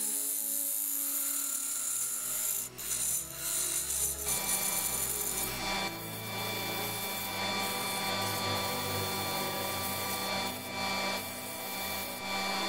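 Hand sanding of an ash segmented vase spinning on a wood lathe: a continuous hiss of abrasive rubbing on the turning wood, with a steady machine hum joining about four seconds in.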